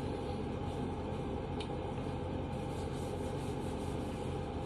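Faint rubbing and handling of Glock pistol parts during cleaning, with one light click about one and a half seconds in, over a steady low hum.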